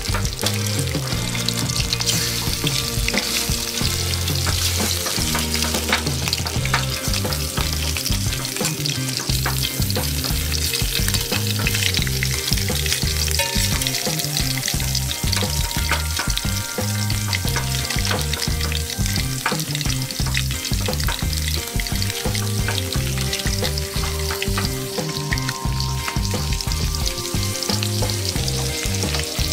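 Pieces of fish frying in hot oil in a metal pan, a steady sizzle and crackle.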